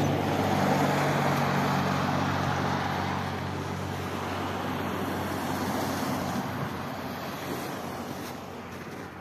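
A car driving by on a wet, slushy road: a steady engine hum under tyre hiss, loudest in the first few seconds, then fading away.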